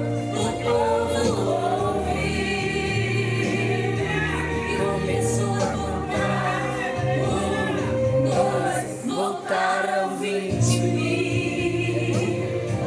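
Brazilian gospel song with a choir singing over a band, the bass dropping out briefly about nine seconds in before returning.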